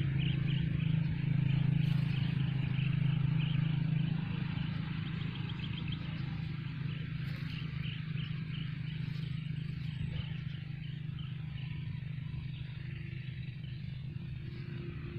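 Outdoor ambience: a steady low hum, a little louder in the first few seconds, with quick repeated high chirps over it.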